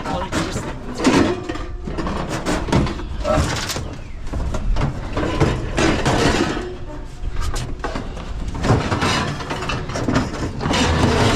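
Scrap metal being shoved and lifted in a truck bed: a run of clanks, knocks and scrapes as the pieces are worked up over the bed rails.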